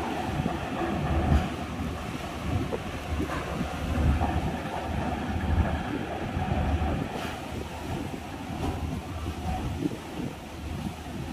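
Strong wind buffeting the microphone in uneven low gusts, over the steady wash of rough sea against the ferry pier.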